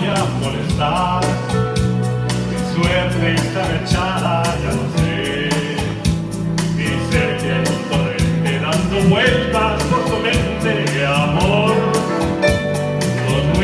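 Latin pop ballad performed live: a man singing into a microphone over electronic keyboard accompaniment with sustained chords.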